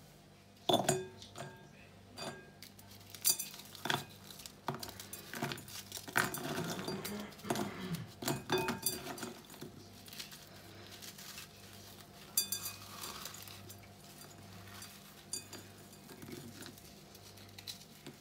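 Dry cookies being broken and crumbled by hand in a glass bowl: sharp snaps and crunchy crackling with small clinks against the glass, busiest in the first half and sparser later.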